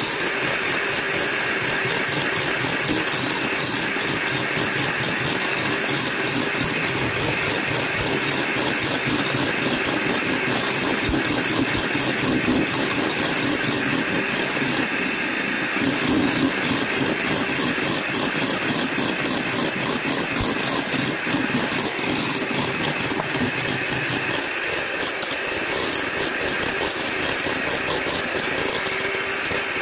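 Electric hand mixer running steadily, its wire beaters whipping meringue in a stainless steel bowl.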